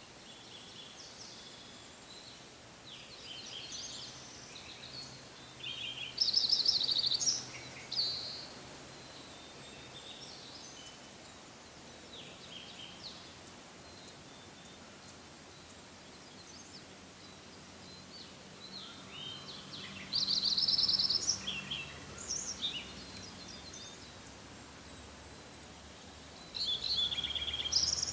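Songbirds singing: short bouts of quick, high trills and chirps over a quiet forest background. The loudest bouts come about a quarter of the way in, again about two-thirds through, and near the end.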